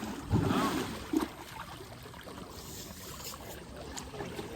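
Water splashing and trickling, loudest in the first second with a short knock about a second in, then a steady quieter wash of water.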